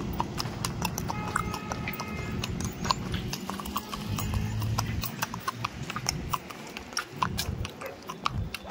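Hooves of a ridden mare clip-clopping, an uneven run of sharp clicks several times a second.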